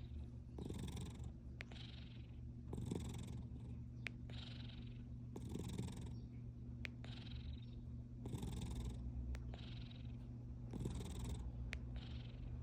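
Domestic cat purring steadily, a low rumble with a breathy rasp on each breath in and out, in pairs every two to three seconds.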